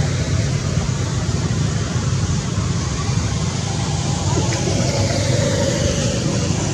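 Steady low rumbling background noise, with no distinct calls or knocks.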